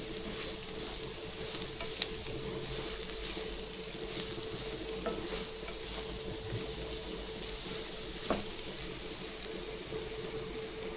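Sliced ivy gourd frying in oil over a low flame: a steady sizzle, with a few light clicks from stirring in the pan, about two seconds in and again near eight seconds. A faint steady hum runs underneath.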